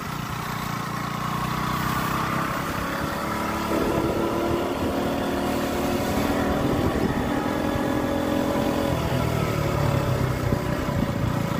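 Motorcycle engine running steadily at riding speed, with wind rushing over the microphone; the engine note changes about four seconds in and again near nine seconds.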